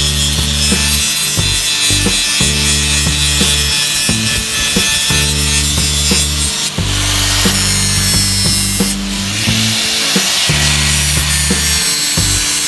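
A power tool sanding or grinding steadily, with background music whose bass line steps from note to note about once a second.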